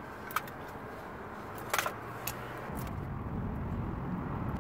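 Small wood fire burning in a box camp stove, with a few sharp clicks about half a second, two seconds and two and a half seconds in. From about three seconds in a louder low rumble joins.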